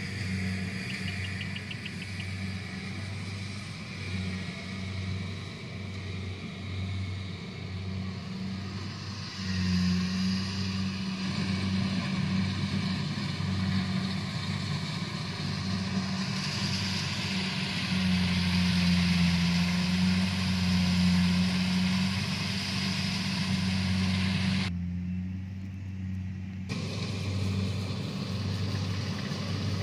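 A rice harvesting machine's engine running steadily with a pulsing low hum. A louder mechanical rush of the machine at work comes in about ten seconds in and swells again past the middle, easing briefly near the end.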